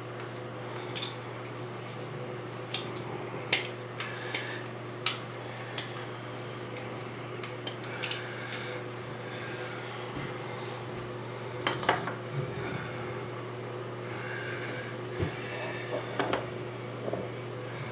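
Scattered small metal clinks and taps of a tool and faucet handle parts as the handle's set screw is backed off and the handle worked, a cluster near 8 seconds and another near 12, over a steady low hum.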